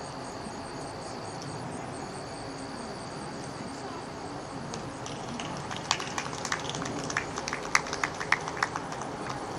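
Steady outdoor background noise with a thin, high, steady whine for the first four and a half seconds, broken once. About halfway through comes a run of sharp, irregular snaps lasting about three seconds, which are the loudest sounds.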